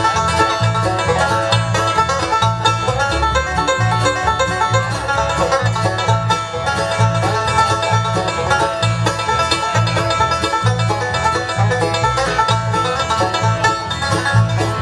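Bluegrass band playing an instrumental break: quick string picking over a steady bass beat, with no singing.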